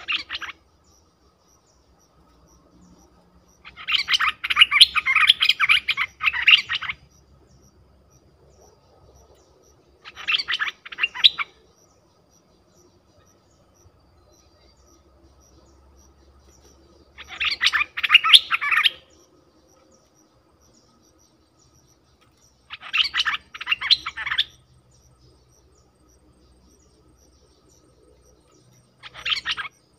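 Stripe-throated bulbul singing in bursts of rapid chattering notes, six phrases a few seconds apart, the second one the longest at about three seconds.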